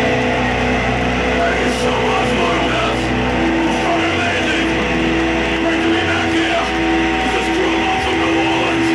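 Live heavy metal band's distorted electric guitars ringing out on a sustained closing chord, with steady feedback tones through the PA. The low bass end cuts off near the end.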